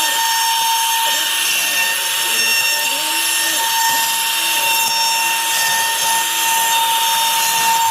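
CNC router spindle running steadily with a constant high whine while a roughing pass clears bulk wood, with shorter lower tones rising and falling underneath as the machine moves.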